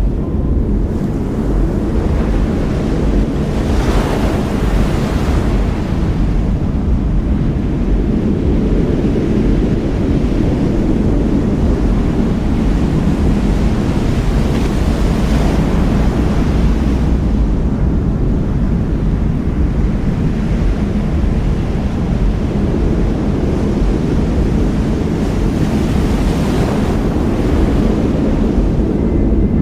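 Storm wind and heavy lake waves in a steady low rush, with a louder wash of breaking surf swelling up three times, about eleven seconds apart.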